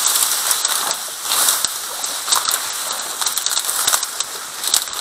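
Dry reed stalks rustling and crackling as they are pushed aside and brushed against at close range, a dense stream of small snaps and swishes.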